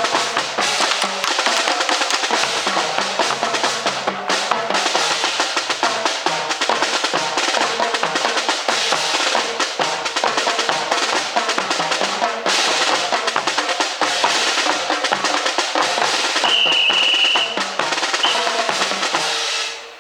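Marching drums playing: rapid snare-drum rolls and rudiments over a steady bass-drum beat about twice a second. The drumming drops away just before the end.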